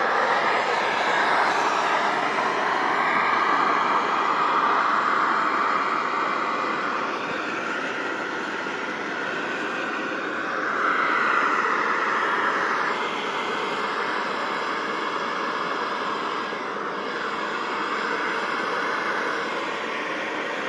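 A radio-controlled model jet's turbine engine running, a steady high rushing whine whose pitch drifts up and down.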